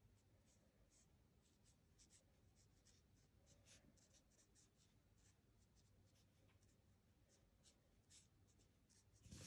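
Faint scratching of an alcohol marker's nib stroking over white card stock, many short strokes at an uneven pace.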